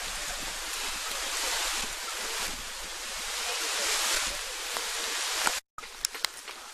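Wind rushing over the microphone, swelling and easing with a low rumble underneath. It cuts off abruptly near the end and gives way to quieter outdoor background with a few sharp clicks.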